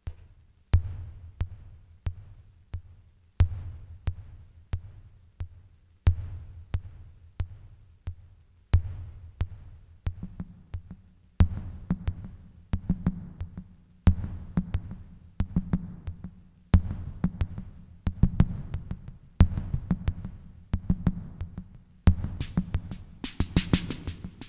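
Sound Master Stix ST-305 analog drum machine starting a pattern under a second in: a looping electronic beat led by the bass drum. A higher drum voice joins about halfway and bright hi-hat-like hiss near the end as its volume faders are raised.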